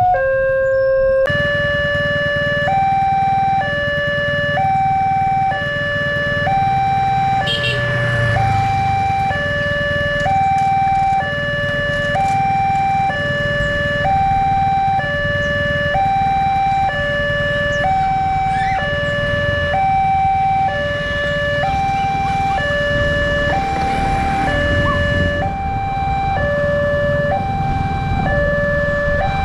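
Railway level-crossing warning alarm: an electronic two-tone signal alternating steadily between a lower and a higher note, each held about a second. It signals that a train is approaching and the barrier is closing.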